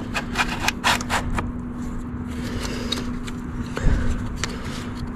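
Short clicks, knocks and scrapes of hands fitting a new diesel fuel filter into its housing and handling the fuel lines on top of it. The clicks are thickest in the first second or so, with a heavier knock about four seconds in, over a steady low hum.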